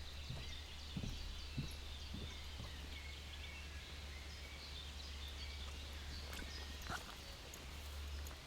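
Forest birds chirping and trilling, with a few soft footsteps on a woodland path in the first few seconds, over a steady low hum.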